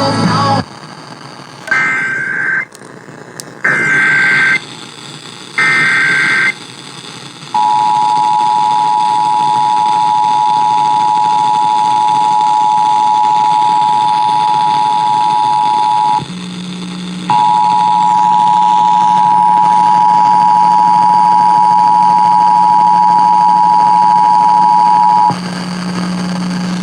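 Emergency Alert System required monthly test: three short screeching data bursts of the digital header, then the EAS two-tone attention signal held steadily for about eight seconds. After a one-second break the attention signal sounds again for about eight seconds over a low hum.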